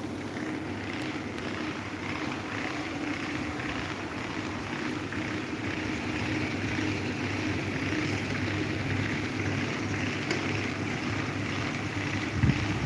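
Electric table fan running steadily: a constant rush of air over a low motor hum, with a couple of low bumps near the end.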